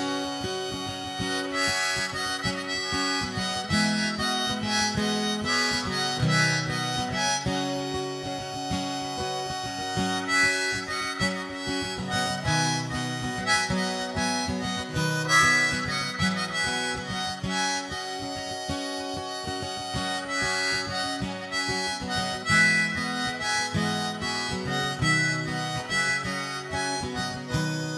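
Harmonica playing an instrumental solo over steadily strummed guitar.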